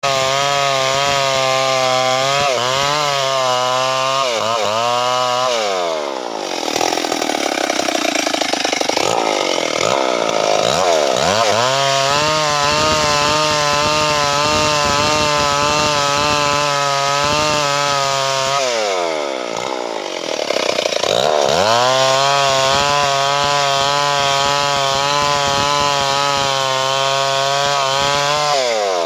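Stihl two-stroke chainsaw running at full throttle, ripping a log lengthwise into beams and boards. The engine note falls away twice, around six seconds in and again near twenty seconds, then revs back up to a steady high whine as the cut resumes.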